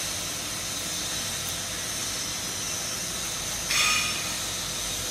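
Steady hissing background noise, with one short, louder rushing scrape just under four seconds in.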